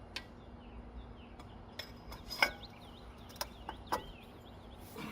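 Scattered metallic clinks and clanks of hand tools, a ratchet, socket and extension, working on a car's lug nuts, with one sharper clank about two and a half seconds in.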